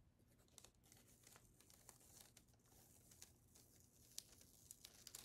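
Faint crinkling and crackling of a thin hot-foil sheet being peeled off freshly foiled cardstock, with scattered small ticks.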